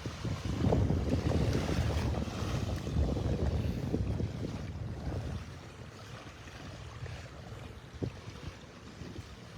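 Wind buffeting the microphone in gusts, loudest for the first few seconds, over a soft wash of gentle surf.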